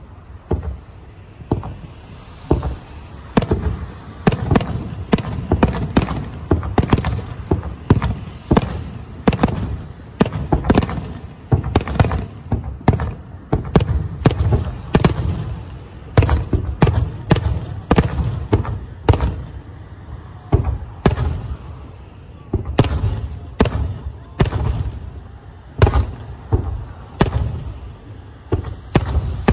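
A rapid barrage of aerial firework shells bursting, a sharp bang every second or less, each followed by a low rumble. The barrage builds up about a second in.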